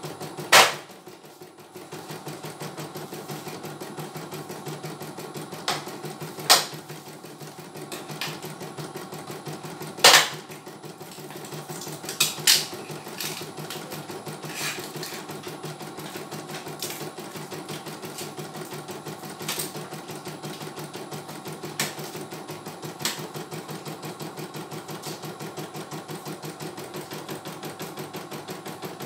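CNY E900 computerised embroidery machine stitching at a steady, rapid rate. Loud sharp clicks come now and then, the loudest about half a second in and about ten seconds in.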